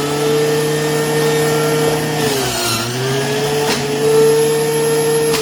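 Electric juicer's motor running steadily as sliced apples are fed through it; about two seconds in the whine drops in pitch as the motor slows under the load, then climbs back up, with a couple of sharp clicks.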